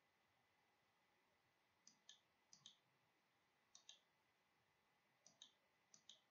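Faint clicking over near silence: five quick pairs of sharp clicks, the first about two seconds in, the pairs roughly a second apart.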